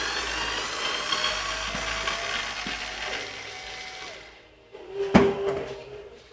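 Cordless electric screwdriver motor whirring with a whine that rises and then holds, slowing and stopping about four seconds in, its battery running weak. A sharp clunk with a brief metallic ring follows about a second later.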